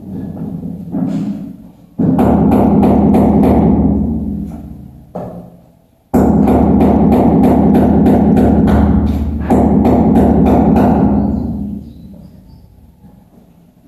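Electric power tool working into a masonry wall in two runs. Each run starts abruptly, carries a regular knocking about three times a second, and fades out gradually.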